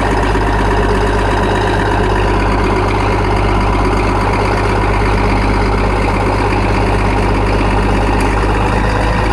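1968 International Harvester 656's six-cylinder diesel engine idling steadily while it warms up after a cold start.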